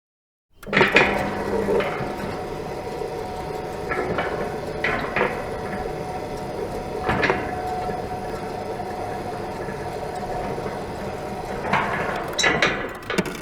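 Automatic gate's electric motor running with a steady hum while the gate moves, with scattered clanks and knocks of the gate hardware. It starts with a clunk and ends with a few knocks as the gate comes to a stop.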